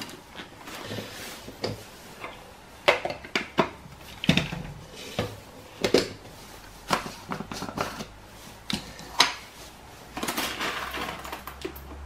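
Scattered clicks and knocks of plastic parts being handled: the clear lid fitted onto a blade coffee grinder and a mini blender's cup lid taken off and set down. A soft rustle near the end.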